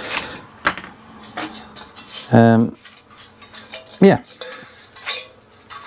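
Light metallic clinks and rattles as a tower CPU cooler's thin metal fin stack and a tape measure are handled and set down. A man briefly hums about halfway through.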